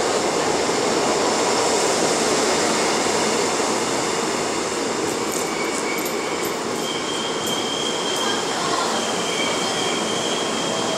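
Seoul Subway Line 2 train pulling into a station and slowing, its wheels and running gear rumbling steadily. About seven seconds in, a high, steady squeal sets in as it brakes toward a stop.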